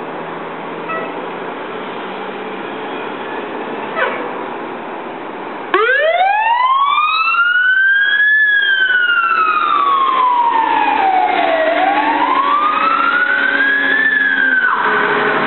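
Fire rescue truck's engine running as it pulls out, then its siren comes on about six seconds in. The siren rises steeply in pitch, wails slowly down and back up once, and drops off abruptly near the end.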